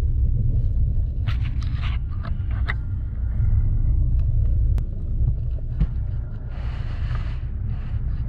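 Low, steady rumble of the car's running engine, picked up by the drone's onboard microphone inside the car's trunk. It is mixed with handling clicks and knocks in the first few seconds as the drone is set in place, and a short hiss a little before the end.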